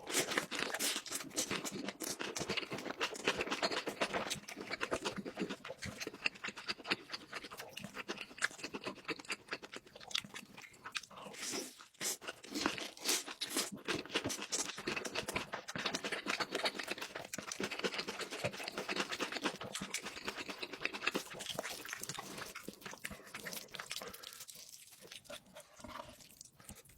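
Close-miked eating: a person chewing and crunching food, with many small crackling bites and mouth sounds, easing off near the end.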